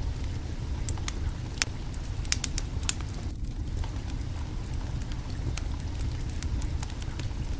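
Wood fire crackling: irregular sharp snaps and pops over a steady low rumble.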